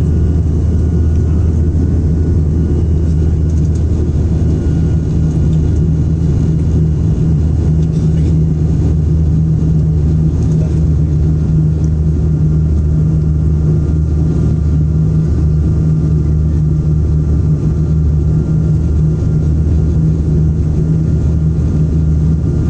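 ATR turboprop airliner's engines and propellers heard from inside the cabin in flight: a loud, steady drone with a deep, even hum.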